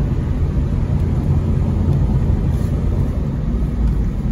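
Cabin noise of a moving 2002 Honda Civic coupe: its D17A1 1.7-litre four-cylinder engine running with steady road and tyre rumble, heard from inside the car.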